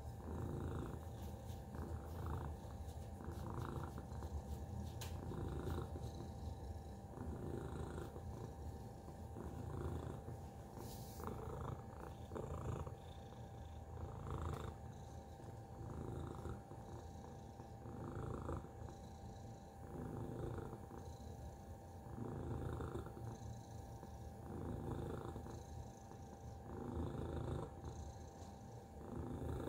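Tabby cat purring continuously, the purr swelling and easing with each breath about every two seconds.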